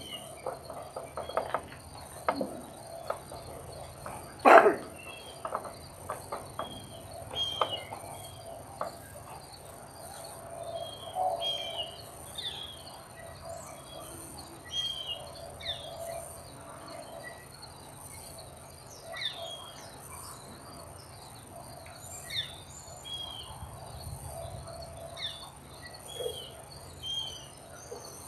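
Birds chirping in short, repeated calls over a steady insect trill. One sharp knock about four and a half seconds in is the loudest sound, with a few fainter clicks.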